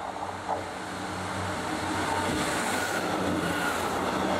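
Diesel train passing close by: a steady engine hum under wheel and rail noise that builds over the first two seconds and stays loud, with a faint high whine near the end.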